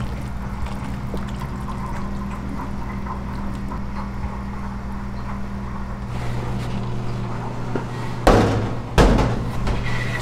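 A large pot of stock bubbling and being stirred with a ladle, with small liquid ticks over a steady low kitchen hum. Near the end there are two loud thuds about a second apart.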